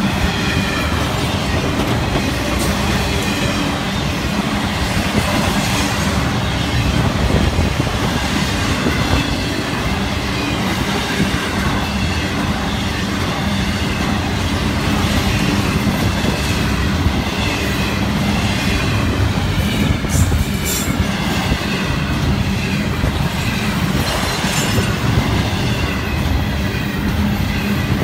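Intermodal freight cars of a Florida East Coast Railway train, loaded with double-stack containers and truck trailers, rolling past close by: a steady loud rumble of steel wheels on rail. A faint wavering high wheel squeal runs under it, and there are occasional sharp clicks, the clearest about two-thirds of the way through.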